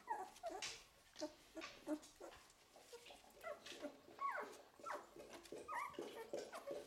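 Eleven-day-old golden retriever puppies whimpering and squeaking, many short high calls that slide up and down in pitch, overlapping here and there.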